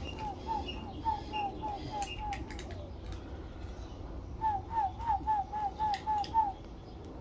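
A bird calling in two runs of short, downslurred notes, about eight notes each at three or four a second, the second run louder. Faint short crunches of a cat chewing dry kibble come in between.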